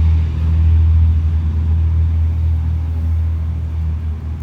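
A steady low mechanical hum with no clear start or stop.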